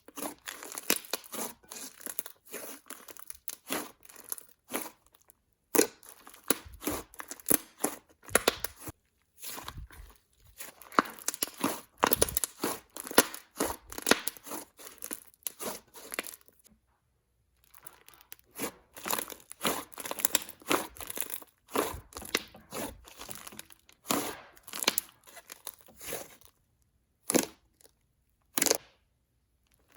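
Thick clay slime being stretched, poked and squished by hand, making irregular crackling clicks and bubble pops. The slime is mixed with clay and slightly rubbery. The clicks pause briefly about 17 seconds in and thin out near the end.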